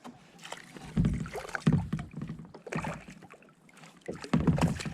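Irregular hollow knocks and bumps on a small paddle boat's hull, in clusters about a second in and again near the end.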